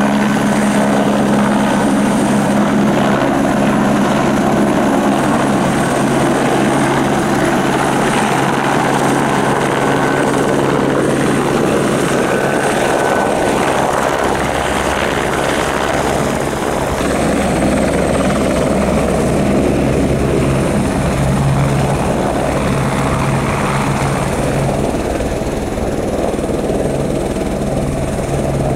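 Cessna 172's piston engine and propeller heard from inside the cockpit, a steady drone with a hum; the engine note shifts slightly about halfway through.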